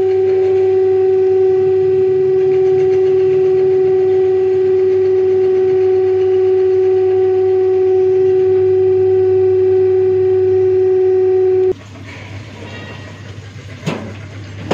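A loud, steady hum at one pitch cuts off suddenly about twelve seconds in. After it comes quieter background noise with one sharp click near the end.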